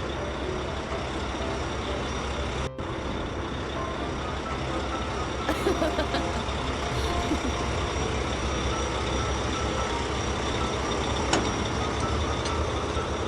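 Cartoon sound effect of a heavy truck engine running: a steady low rumble under a noisy mechanical din, broken off for an instant a little under three seconds in.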